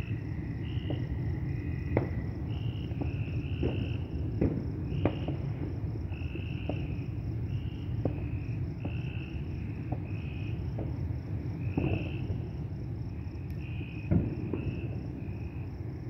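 Crickets and other night insects chirping steadily, one high chirp repeating about three times a second, over a low outdoor rumble. A few faint sharp pops, distant fireworks, are scattered through the chorus.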